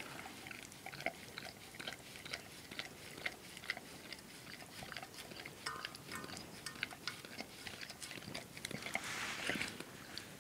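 A dog licking and mouthing a muffin treat in a stainless steel bowl: many small, irregular wet clicks and ticks of tongue and teeth, with a breathy sniff about nine seconds in.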